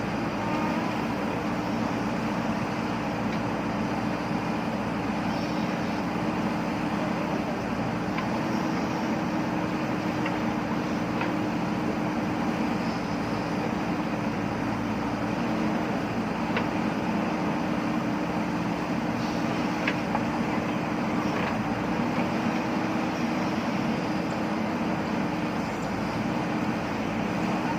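JCB backhoe loader's diesel engine running steadily as the machine works, with a few faint clicks over the drone.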